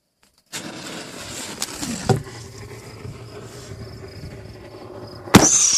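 Firework fuse hissing steadily for several seconds, then a sharp loud bang as the shell fires from its launch tube near the end, followed at once by a high whistle that slides down in pitch.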